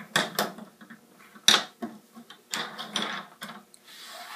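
Several sharp clicks and light knocks of small objects being handled, the loudest about a second and a half in.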